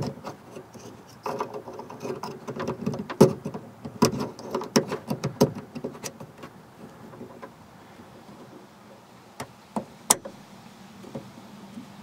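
Hands working inside a car door cavity to plug a wiring connector back in: scattered plastic clicks, taps and rattles, busiest in the first few seconds, then a few isolated clicks, with one sharper click about ten seconds in.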